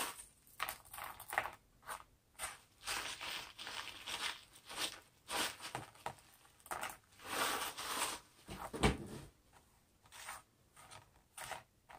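A clear plastic bag crinkling and small glass pebbles clinking as they are shaken out into a hand and dropped onto a canvas, in short irregular bursts. One sharper, louder knock comes about three quarters of the way through.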